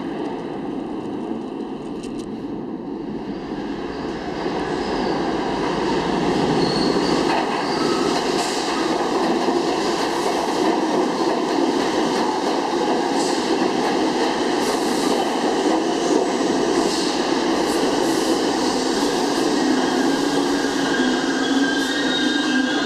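R62-series subway train on the 1 line approaching and running into the station. Its rumble swells from about five seconds in, with high squealing tones from the wheels over the last few seconds as it comes along the platform.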